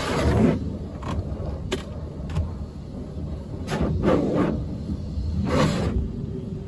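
Pressure-washer jet sweeping over the car's body and windows, heard from inside the cabin: a hiss that swells and fades three times as the spray passes, over a steady low rumble, with a few short ticks early on.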